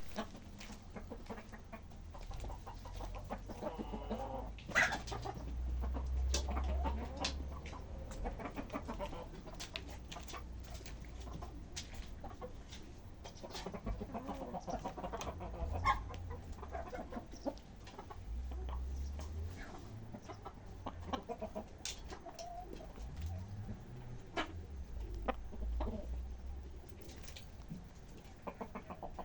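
Chickens clucking on and off, with many short sharp clicks scattered through and occasional low rumbles.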